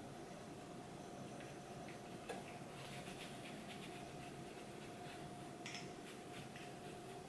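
Faint brushing of a dense Sigma foundation brush buffing liquid foundation onto the skin, soft scratchy strokes over a low hiss and a steady faint hum, with one small click a little over two seconds in.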